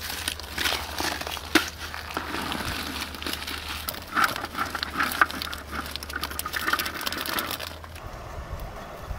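Boiled quail eggs tumbling out of a pot into a wicker basket: a busy clatter of small shells knocking together, with water splashing and draining through the weave. The clatter dies down near the end.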